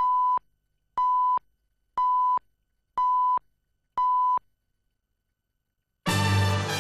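Countdown leader beeps: five identical short, steady, high beeps, one each second as the count runs from five to one. After a pause of more than a second, music starts suddenly near the end.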